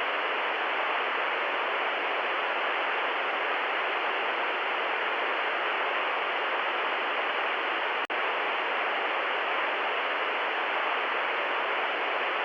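Steady static hiss like a detuned TV or video tape, cutting out for an instant about eight seconds in.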